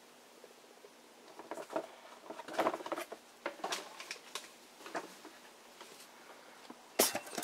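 Light clicks, taps and scrapes of a plastic Fire Diver fire-engine transforming toy being turned and handled in the hand, with one sharper click near the end.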